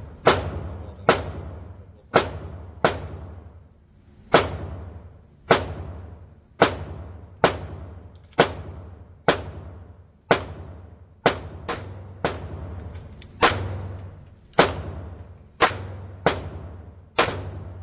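HK VP9 9mm pistol with a compensator being fired in a steady slow string, about one shot a second. Each report is a sharp crack followed by a short ringing tail.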